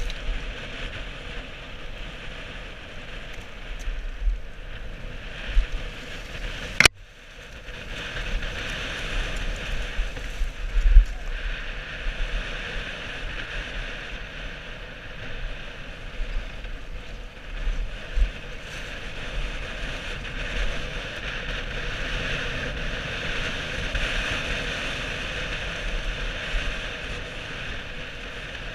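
Mountain bike descending a dirt forest trail at speed, recorded on a helmet camera: a steady rush of wind buffeting the microphone mixed with tyre and bike rattle over the rough ground, with low thumps from bumps. A single sharp click sounds about seven seconds in.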